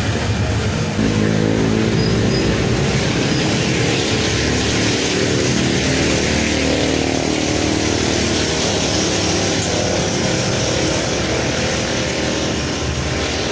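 An engine running steadily, its pitch drifting slightly up and down, over a strong steady hiss.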